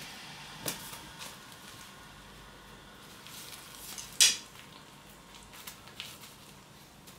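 Burmese kittens playing with a wand toy on a tiled floor: scattered light taps and scuffs of paws and toy. One sharp click a little past four seconds in is the loudest sound.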